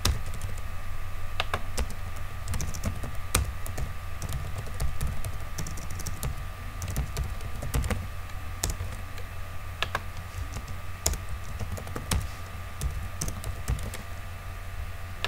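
Computer keyboard being typed on: irregular key clicks, some in quick runs, over a steady low hum.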